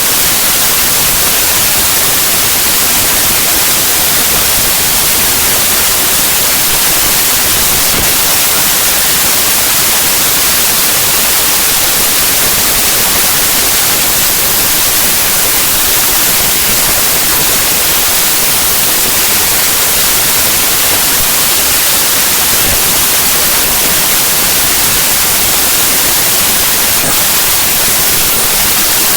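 Loud, steady static hiss with no tones or rhythm: the compressed bytes of a zip archive played as raw 8-bit unsigned mono audio, which comes out as near-random white noise.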